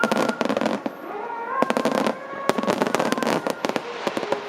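Large fireworks display: shells bursting and crackling in quick succession, many sharp reports every second.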